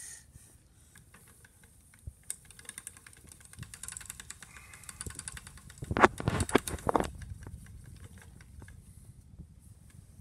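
Antique wooden spinning wheel turning, a fast run of small wooden clicks, with a louder cluster of knocks about six seconds in.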